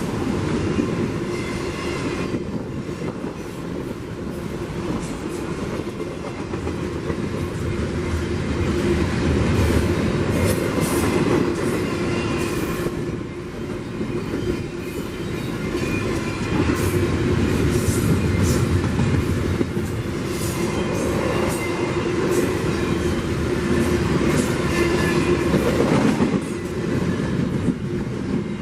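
Railcars of CPKC train 149 rolling past with a steady rumble and the clickety-clack of wheels over the rails, with brief high wheel squeals now and then.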